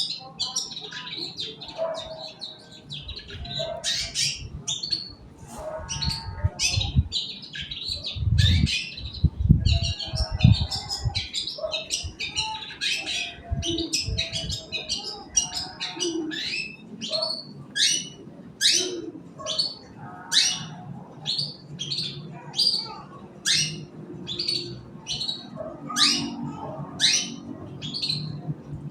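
Long-tailed shrike (cendet) singing a rapid, chattering run of sharp high chips and short phrases. A few low thuds come between about six and eleven seconds in.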